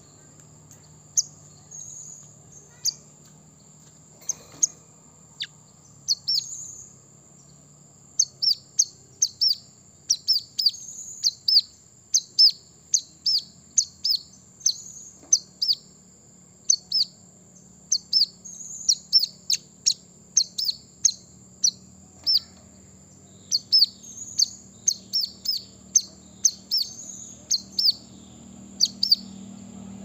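Brown-throated sunbird calling: sharp, high chirps that each drop quickly in pitch, sparse at first and then coming in quick runs of two or three from about eight seconds in.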